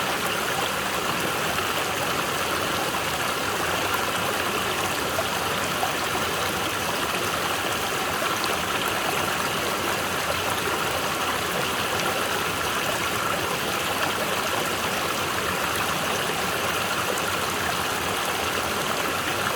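Mountain stream water flowing in a steady, continuous rush.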